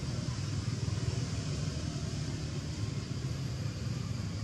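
Steady outdoor background noise: a continuous low rumble with a hiss above it and no distinct events.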